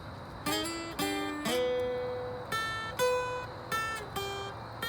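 Acoustic guitar picking a simple melody one note at a time, about two notes a second with a few notes held longer, each ringing and fading.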